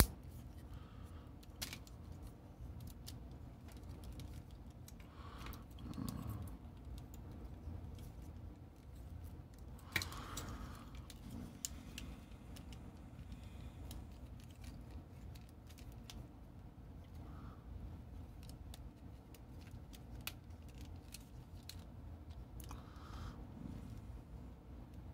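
Faint scattered clicks and rattles of hard plastic as a Transformers Animated Sunstorm action figure is transformed by hand, its parts being moved and snapped into place.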